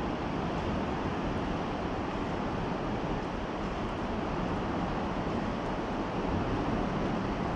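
Steady rushing noise of wind on the microphone and the flowing river, even and unbroken with no distinct events.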